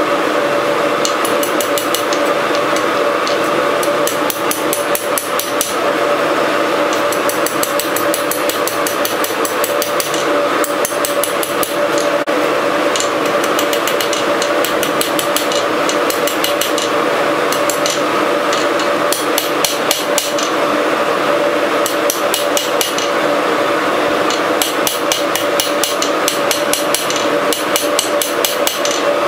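Hand hammer striking red-hot rebar on a steel anvil, forging the bar's end with fast runs of blows broken by short pauses. A steady hum runs underneath.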